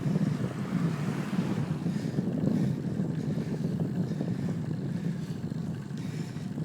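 Steady wind rumble on the microphone of a camera riding along on a bicycle, mixed with road noise.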